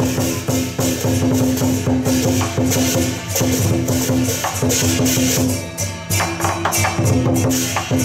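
Lion dance accompaniment: fast, dense drum and cymbal beats with a steady pitched tone held over them in phrases.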